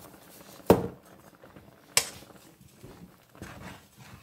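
Two sharp knocks of kitchen utensils against a pan, about a second apart, the first the loudest, then the soft sounds of a wooden spoon stirring a thick simmering mixture of milk, macaroni and ground beef near the end.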